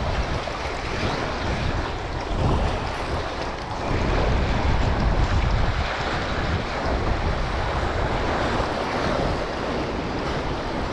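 Wind buffeting the microphone, with sea surf washing against shore rocks underneath; a steady noisy rumble that swells a little about four seconds in.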